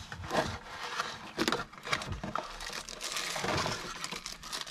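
Plastic packaging being handled: crinkling and rustling as a shiny nylon drawstring pouch and then a small clear plastic bag are turned over in the hands, uneven and stop-start with a few clicks.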